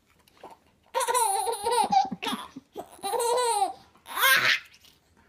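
A baby laughing in four short high-pitched bursts, starting about a second in.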